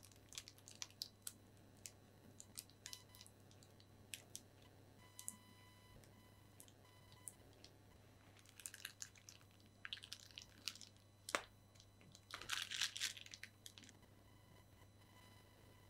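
Faint crinkling and crackling of a plastic piping bag squeezed in the hand, in short scattered spells, with one sharper click about eleven seconds in.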